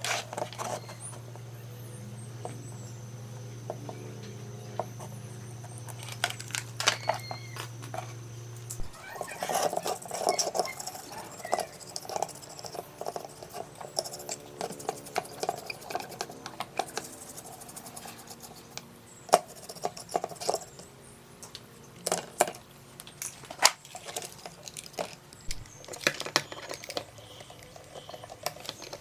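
Workbench handling sounds: scattered clicks, taps and small knocks of parts and tools. A steady low hum stops suddenly about nine seconds in.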